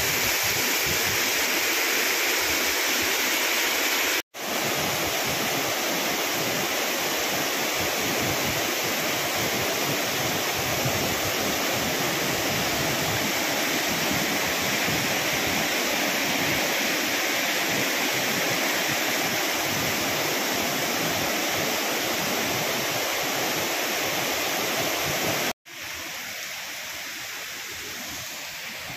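Loud, steady rush of heavy rain and running water. It cuts out briefly twice, and after the second break it comes back quieter.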